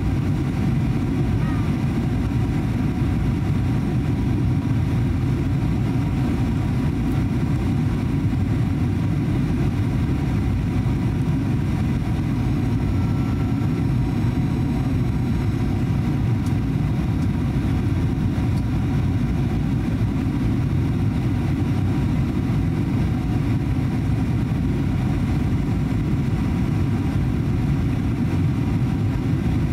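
Steady low rumble inside the cabin of a Boeing 737-800 with its CFM56-7B24 engines running, even and unchanging throughout.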